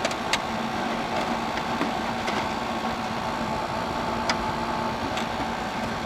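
Steady hum of a General Electric dehumidifier's compressor and fan running, with a few light clicks as its housing is handled.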